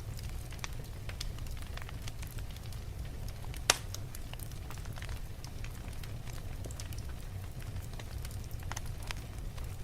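Wood fire burning in a fireplace: steady crackling with scattered small pops over a low rumble, and one louder sharp pop about four seconds in.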